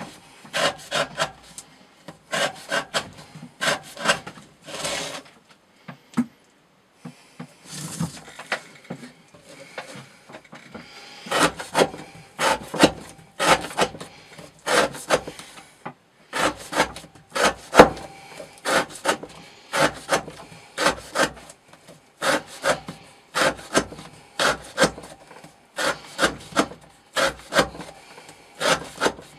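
A knife blade cutting through rope in repeated strokes, about two a second, with a short break about six seconds in: an edge-retention cutting test.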